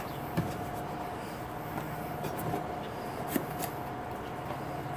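A steady background hum with a few faint, light taps or clicks.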